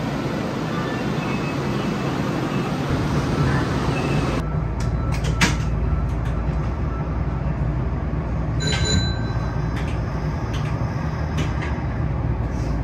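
Plarail toy trains running on plastic track, a steady whirring with scattered sharp clicks. The sound changes abruptly about four seconds in.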